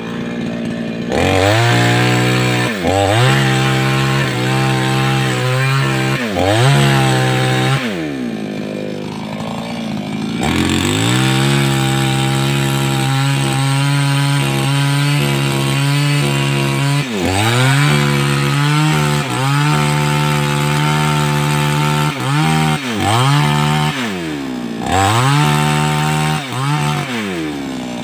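588X two-stroke chainsaw cutting through wood at full throttle, its pitch dipping again and again as the chain bites. About eight seconds in it drops to idle for a couple of seconds, then revs back up and carries on cutting.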